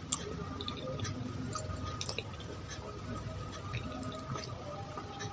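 Spoon scooping through a bowl of es pisang ijo, with small clicks and liquid dripping.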